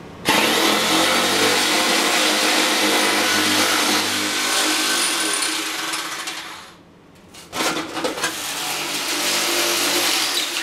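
Electric sheet metal shears running and cutting around a single-wall steel stovepipe along a marked line, in two runs: one of about six seconds, then, after a short pause, another of about three seconds.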